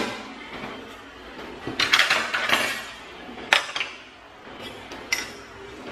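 Kitchen utensils clinking and rattling in a drawer as they are handled, with metal skewers being laid along its edge. There is a clatter about two seconds in, then a few single sharp clicks.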